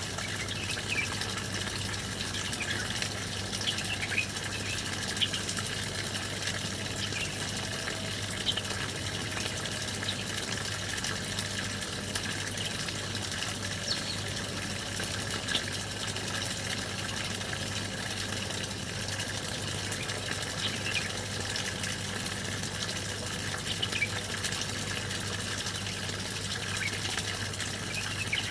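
Small songbirds chirping in short, scattered calls every second or two over a steady rush of running water, with a constant low hum underneath.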